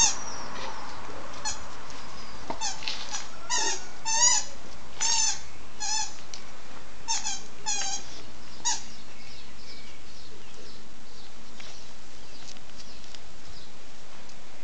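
A small dog whining in a string of short, high squeaks, in bunches between about 1.5 and 9 seconds in.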